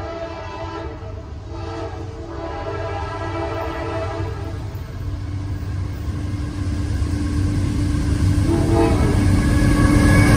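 Air horn of an approaching Norfolk Southern diesel freight locomotive, sounding several blasts with short breaks over the first half. Under it the locomotives' engine rumble grows steadily louder as the train draws near.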